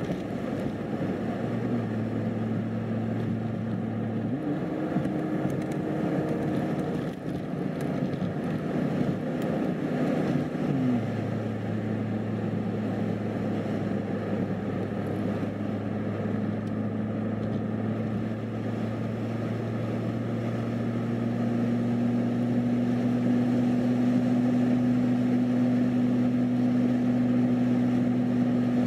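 Car engine and tyre noise heard from inside the cabin while driving on a paved highway: a steady low drone. Its tone shifts for several seconds near the start, then rises slightly in pitch and loudness in the second half.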